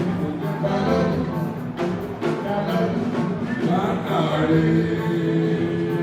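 Live juju band music playing steadily, with a long held note through the second half.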